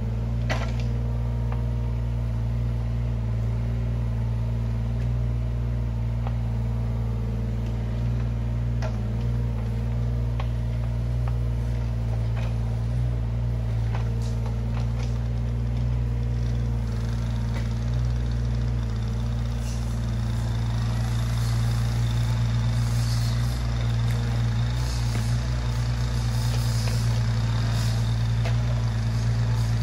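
Yanmar ViO17 mini excavator's three-cylinder diesel engine running steadily, with a few sharp knocks now and then. The engine gets somewhat louder and harsher about two-thirds of the way in.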